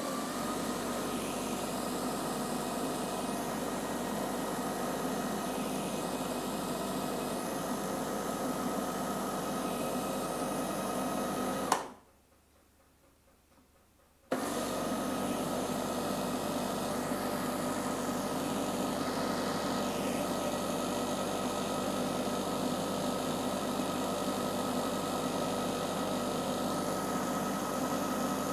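Countertop blender's electric motor running at speed, churning milk with instant coffee and Nesquik powder, with a steady high whine over it. It cuts off abruptly near the middle, is quiet for about two seconds, then starts again.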